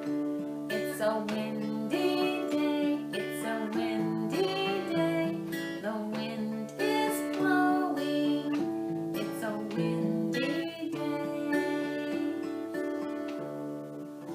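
Acoustic guitar music with strummed chords and a melody line over them.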